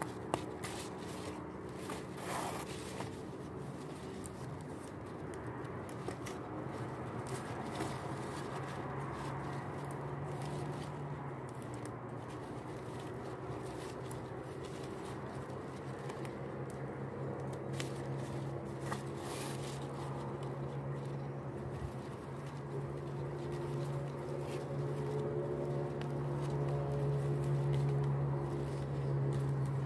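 Large leaves and tape rustling and crinkling as they are handled, with small scattered clicks, over a steady low mechanical hum that grows louder toward the end.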